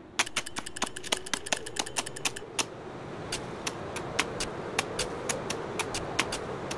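A fast, irregular run of sharp clicks and taps over a steady low hum. The clicks are densest in the first two seconds and thin out towards the end.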